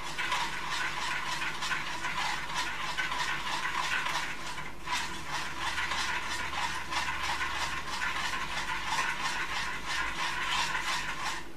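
Spoon stirring a hot milk, cream and cheese mixture in a stainless steel saucepan, with quick, rhythmic scraping strokes against the pan that stop abruptly near the end.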